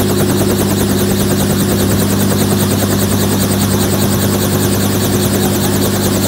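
Helicopter running on the ground, loud and steady: a constant low engine hum with a fast, even beat from the turning rotor.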